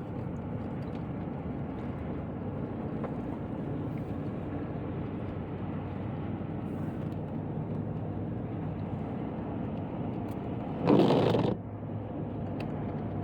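Steady road and engine noise inside a moving car's cabin, with a brief louder rush about eleven seconds in.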